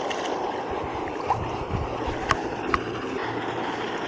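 Water splashing and sloshing as a hooked largemouth bass thrashes at the surface and is drawn to the bank. Two short sharp clicks come close together about two and a half seconds in.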